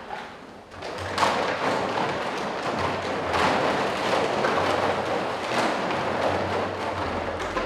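Empty plastic bottles crackling and clattering, with thuds, as a dancer rolls and crawls through a pile of them on the stage floor. The crackle starts about a second in and keeps up evenly, over a faint low hum.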